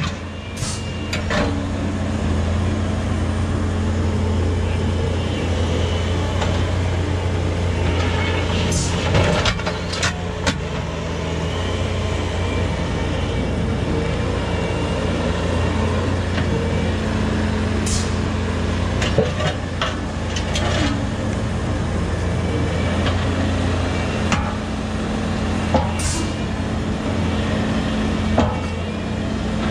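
Bobcat skid steer's diesel engine running steadily while it carries and places boulders in its grapple attachment, with a few sharp knocks of rock and steel.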